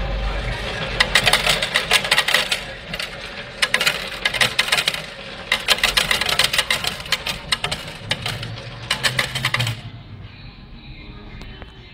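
Coins clattering out of a slot machine's hopper into its metal payout tray, in several quick bursts of metallic clinks that stop near the end.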